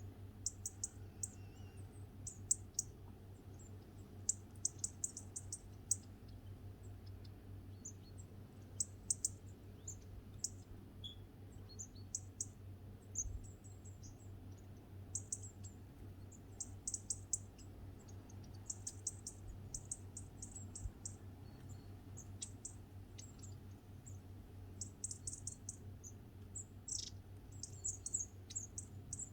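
Small garden birds chirping at feeders: many short, very high-pitched chirps and calls in quick clusters throughout, over a faint low steady hum.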